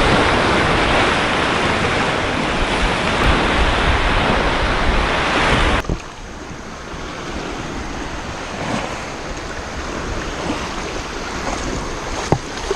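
Gulf surf washing on the beach with wind buffeting the microphone. The heavy wind rumble cuts off suddenly about six seconds in, leaving quieter, steady surf.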